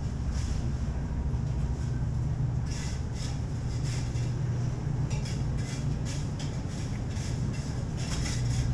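Steady low hum of refrigerated display cases. From about three seconds in, soft rustles and clicks come and go over it.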